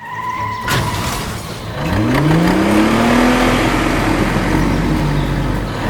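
An engine revving up: its pitch climbs from about two seconds in and then holds steady under a noisy mechanical rush. A short steady beep opens the sound.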